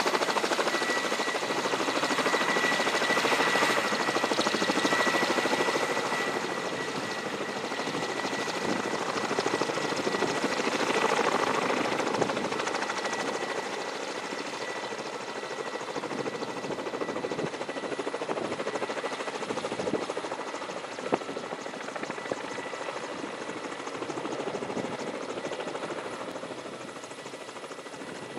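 Kamov Ka-32A coaxial-rotor helicopter running, its rotor and turbine noise steady with a high whine strongest in the first few seconds, fading gradually as it moves away.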